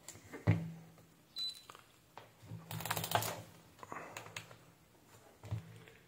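Light clicks and clatter of a digital multimeter and its test probes being handled on a workbench, with a denser run of clicking about halfway through.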